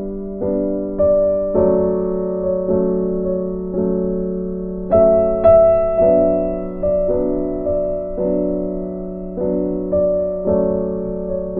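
Slow background piano music: single notes and chords struck about once or twice a second, each dying away, loudest about five seconds in.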